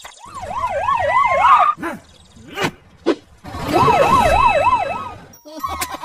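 Cartoon police-car siren in a fast warbling yelp, about four up-and-down cycles a second. It sounds in two bursts over a low vehicle rumble, with a few short knocks in the gap between them.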